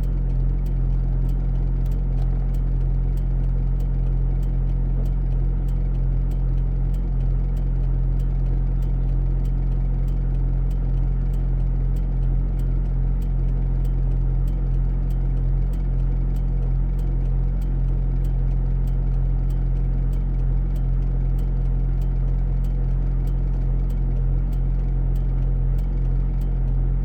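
Vehicle engine idling steadily with a low hum, with faint regular ticks about one and a half times a second.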